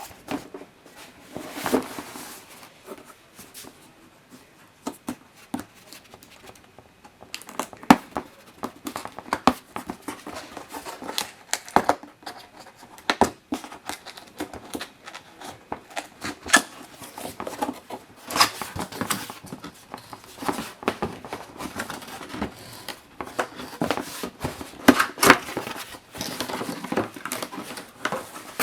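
Cardboard box and plastic packaging being handled and opened: irregular crinkling, rustling and tearing with scattered knocks, sparse at first and busier from about seven seconds in.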